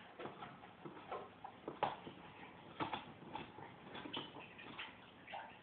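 German shepherd chewing a bone: irregular crunches and clicks from teeth on bone, the loudest about two and three seconds in.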